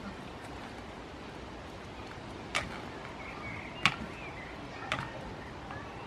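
Three sharp knocks about a second apart, the middle one the loudest, as two young goats butt heads in play.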